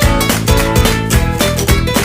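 Upbeat background music with a steady, quick beat and plucked guitar.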